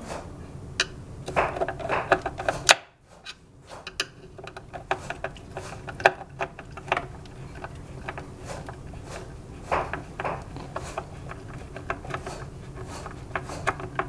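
Small screws being driven by hand with a screwdriver into a hoverboard's shell and handled on the table: irregular light clicks, taps and scrapes. The sound drops away briefly about three seconds in.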